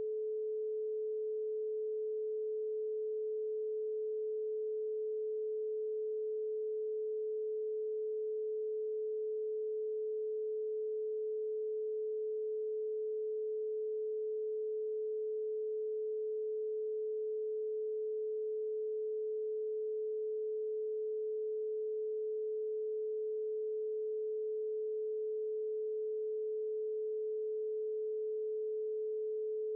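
A single steady electronic sine tone a little below 500 Hz, unchanging in pitch and level: a generated brainwave-entrainment tone.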